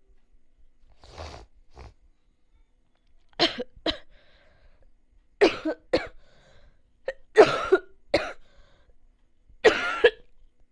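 A person coughing in short fits of two or three coughs about every two seconds, the first pair softer and the rest loud.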